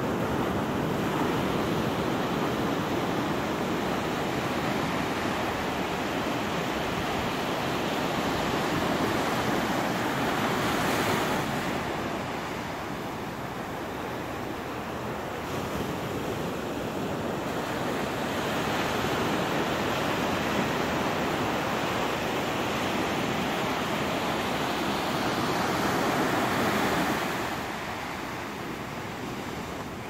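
Ocean surf breaking and washing up the sand in a steady rush, swelling louder about ten seconds in and again near the end before easing back.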